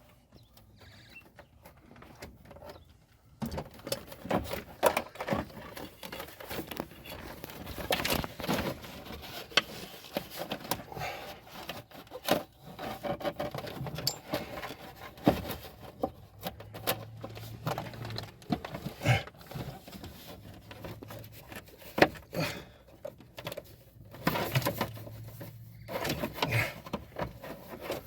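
Irregular clicks, taps and rustling from hands working on wiring, clips and panel parts, with a few sharper knocks; quieter for the first few seconds.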